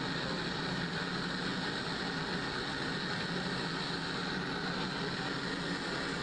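Steady rushing of a propane gas burner flame firing into a small glass bead-making oven.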